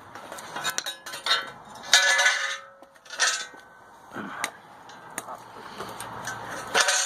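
Metal objects clanking and clinking together as they are handled, with a few louder clanks about two and three seconds in that ring briefly.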